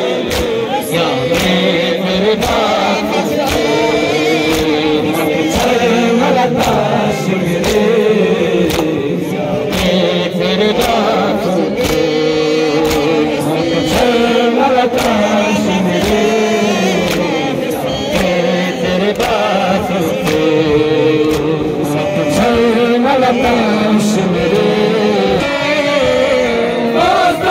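Crowd of men chanting a Muharram nauha (mourning lament) together, with steady rhythmic chest-beating slaps (matam) in time with the chant.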